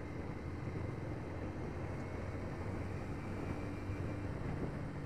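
Motorcycle engine of a Yamaha Vixion R, a 155 cc single-cylinder, running steadily at a cruise, with steady wind and road noise on the microphone.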